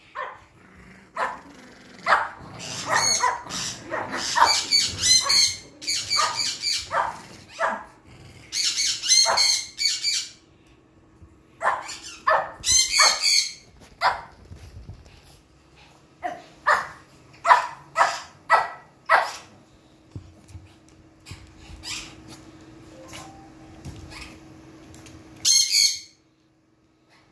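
Small dog, a Pekingese, barking and yipping in repeated short bursts, some of the calls shrill and high-pitched.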